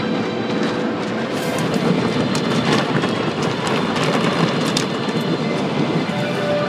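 Automatic car wash heard from inside the car: a steady rumble of spraying water and machinery, with frequent slaps and knocks as the cloth brushes scrub across the windows and body.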